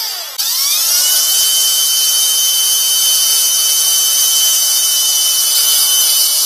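Cordless drill running at speed, twisting a bundle of sensor wires together. Its high motor whine eases for a moment, winds back up in pitch about half a second in, then holds steady.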